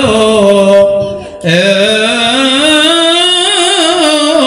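A man's solo voice singing an unaccompanied Moroccan madih, an Arabic praise song for the Prophet. He holds two long melismatic notes with a wavering vibrato, with a short break about a second and a half in; the second note rises slowly.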